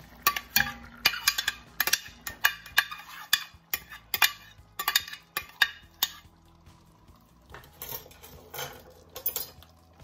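Metal slotted spoon scraping and knocking against a ceramic baking dish as marinated chicken is scooped out into a pot: a quick irregular run of sharp scrapes and clacks for about six seconds, then a few more near the end.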